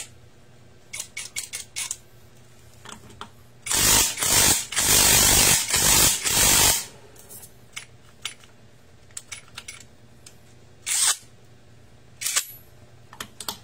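Cordless impact wrench running in bursts at a scooter's wheel hub: three loud bursts back to back about four seconds in, the longest about a second, then two short ones near the end, with small clicks of tools being handled between them.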